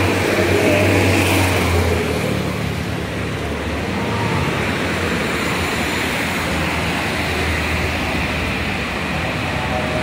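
City street traffic: cars driving past on a wet road, with a steady low hum and a louder pass in the first two seconds.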